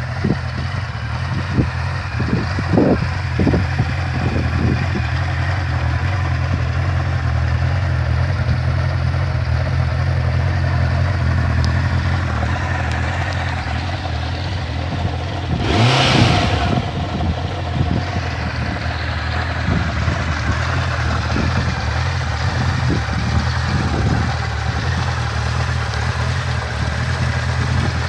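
Honda CB1000 Super Four's liquid-cooled inline-four engine idling steadily, with one short blip of the throttle about halfway through that rises and falls quickly.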